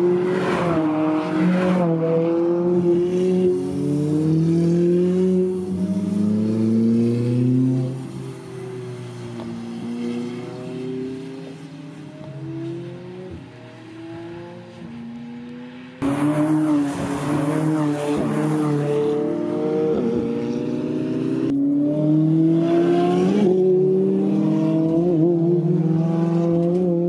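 McLaren Sports Series sports car's twin-turbocharged 3.8-litre V8 accelerating hard, its pitch climbing and dropping back several times as with gear changes. The engine sound fades away for several seconds in the middle, then comes back loud all at once and climbs again.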